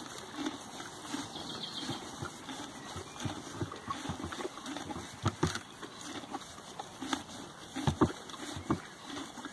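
Pony feeding from a plastic slow hay feeder bucket: irregular knocks, scrapes and wet sloshing as its muzzle works hay up through the grid plate over soaked hay. The loudest knocks come about five and eight seconds in.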